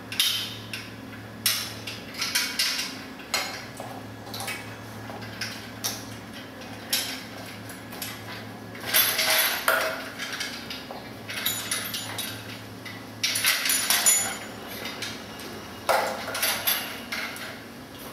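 Bicycle rear rack parts being assembled by hand: metal struts, small bolts and the rack platform clinking, clicking and knocking on a tiled floor in irregular bursts, with a few longer scraping rattles.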